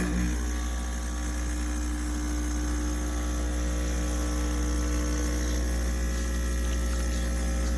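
De'Longhi Stilosa EC260 espresso machine's pump switching on and running with a steady buzzing hum as it pushes water through the portafilter to brew a double shot.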